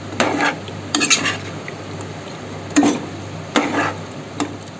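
Steel spoon stirring thick chicken curry in a metal cooking pot, scraping and knocking against the pot about five times as the masala is sautéed.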